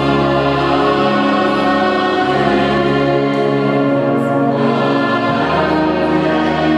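Choir singing slow, long-held chords, the harmony moving to a new chord about two seconds in and again about five seconds in.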